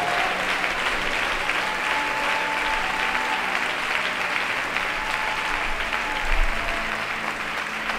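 Church congregation clapping their hands in steady applause, many hands together.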